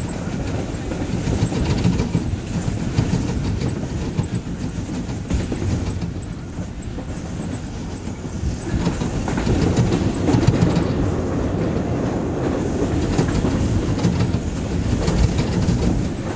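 Jaffar Express passenger train running along the track, heard from inside a coach: a continuous rumble of the wheels with repeated clicks as they pass over rail joints.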